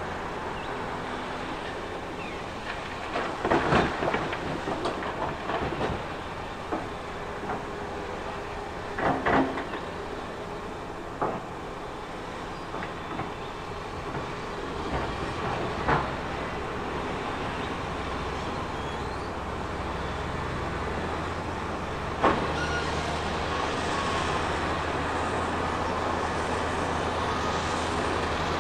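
Heavy earth-moving machine's engine running steadily, with irregular metallic clanks and rattles of tracks and rock. The clanks are loudest a few seconds in and again around nine seconds, and there is a single sharp knock later on.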